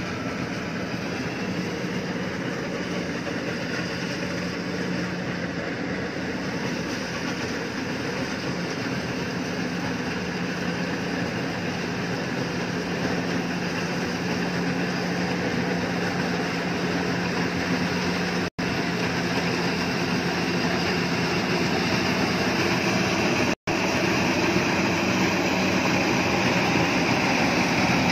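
Iseki HC80 combine harvester running steadily while it cuts and threshes rice: an even engine drone over the hiss and rattle of its machinery, growing a little louder near the end as it draws closer.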